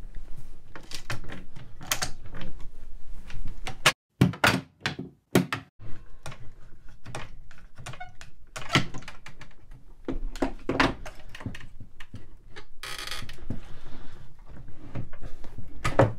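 Quick-Grip bar clamps reversed as spreaders, their trigger handles squeezed over and over with irregular clicks and knocks as they force a glued chair leg joint apart.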